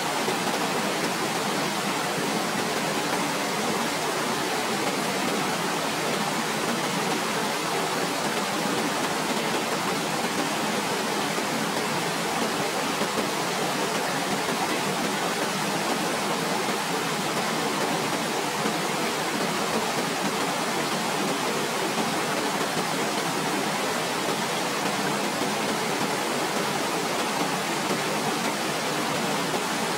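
Waterfall: a steady, unbroken rush of falling water, even in level.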